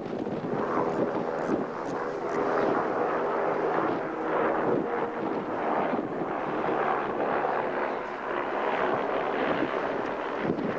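Steady drone of a harbour ferry's engine, with wind buffeting the camcorder microphone.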